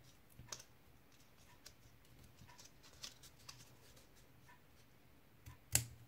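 Scissors snipping the corners off a small folded strip of cardstock: a few faint, scattered snips, with a sharper click near the end.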